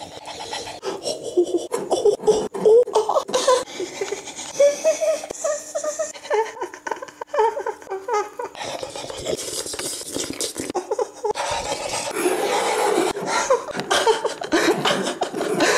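A person laughing in repeated short bursts, over scratchy rubbing noises.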